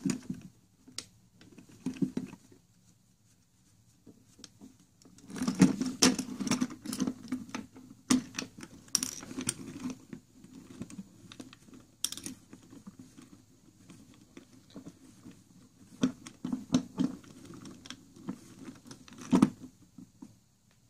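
Gloved hands taking apart the WorkBee CNC's X-axis carriage: irregular small clicks, taps and rattles of metal parts being handled, busiest about five to ten seconds in, with a sharp click near the end.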